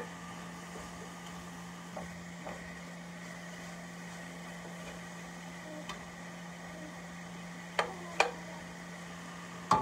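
A metal spoon knocking against the side of a stainless steel pot while vegetables are stirred: a few light taps, then three sharper clanks in the last two seconds. A steady low hum runs underneath.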